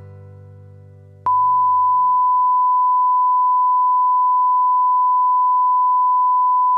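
The last chord of background guitar music fading out, then, after about a second, a loud, steady electronic beep on one unchanging pitch that holds without a break.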